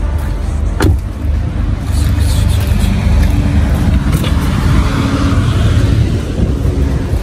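Steady low rumble of a motor vehicle, with a single sharp knock about a second in.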